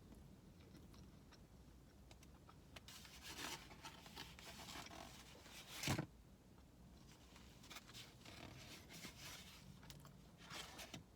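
Faint rustling and scraping of takeout food packaging being handled, with one sharp knock about six seconds in.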